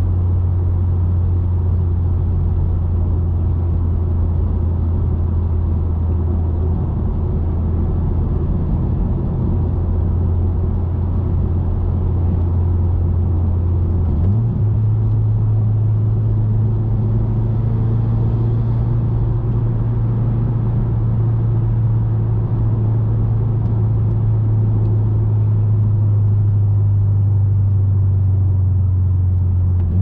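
Stage 2+ tuned 2018 Subaru WRX's turbocharged flat-four cruising, heard from inside the cabin as a steady low exhaust drone with road noise. About halfway through the drone steps up slightly in pitch and holds there.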